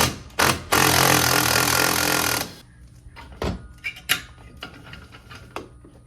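Impact wrench hammering at a fastener: two short bursts, then a steady run of about two seconds that stops sharply, with light metal knocks and clinks afterwards.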